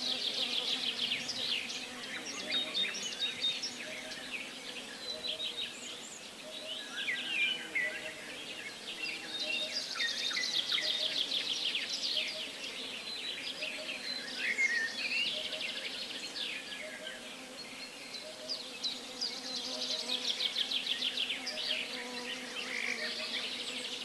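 Birds chirping and trilling in bursts, with quick high notes and short falling calls, over a faint steady insect buzz.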